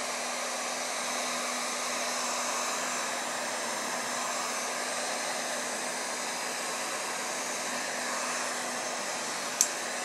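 Electric heat gun running steadily, blowing hot air to shrink heat-shrink tubing on a speaker cable's plug end: an even rush of air with a faint steady hum underneath. A single short click near the end.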